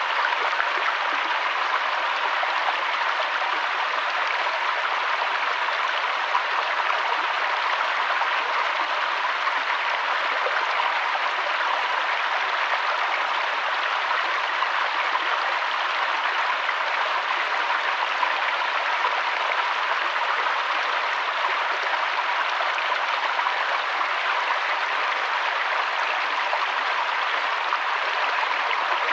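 River water flowing, a steady even rush of running water without breaks.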